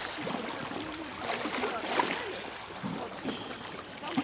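Calm sea water lapping and gurgling against the rocky shore close to the microphone, with a brief sharper sound about halfway.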